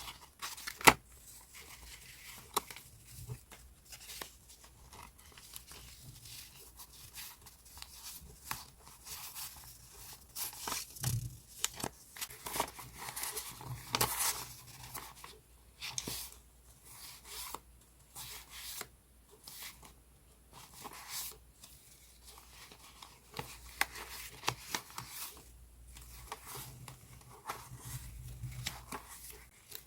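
Paper being handled: rustling and tearing, with many sharp clicks and taps, the sharpest about a second in.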